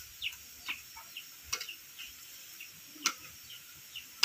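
Bird chirping outdoors in short falling chirps, several a second, with a few sharp clicks about every second and a half.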